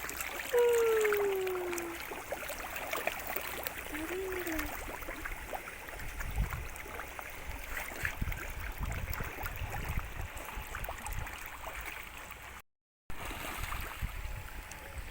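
Water splashing and gurgling as a crowd of fish feed at the surface, with a voice's long falling "ooh" about half a second in. The sound drops out completely for a moment near the end.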